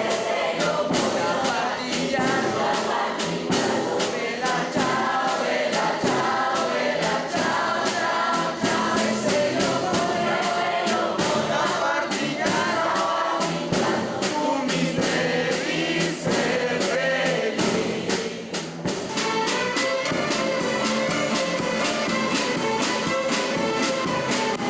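Ensemble music with a steady percussive beat and melodic lines over it.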